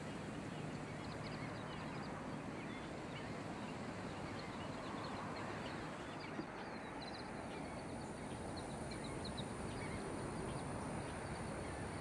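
Open-country ambience: a steady, even hiss with faint, scattered high chirps of small birds. About halfway through, a thin, high, steady whine comes in.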